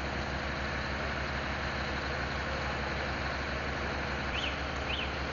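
A heavy vehicle engine idling steadily with an even low pulse. Two short high chirps sound near the end.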